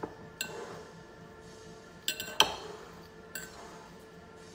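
A metal fork clinking against a ceramic bowl while tossing sauced chicken wings: a few sharp clinks, with a quick run of three, the loudest, about halfway through.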